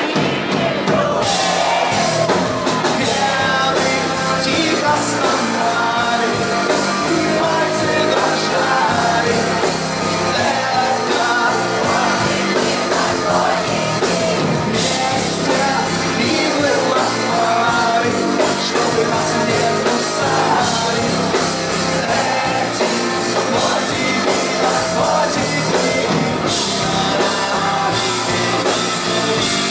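Live rock band playing: a lead vocal sung over electric guitar, bass guitar and drums, steady and loud, heard from within the audience in a hall.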